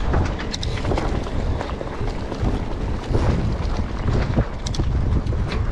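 Wind rushing over the microphone while a mountain bike is ridden along a trail, with a few sharp clicks and rattles from the bike over the ground.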